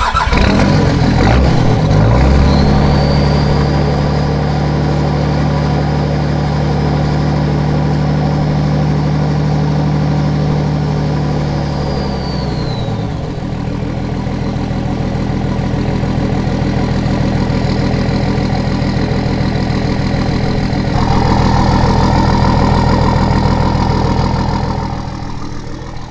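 Nissan Patrol's RD28 straight-six diesel engine starting and running up to a steady, higher engine speed held for about ten seconds, then dropping back to a steady idle. The sound fills out and grows a little louder again about twenty seconds in.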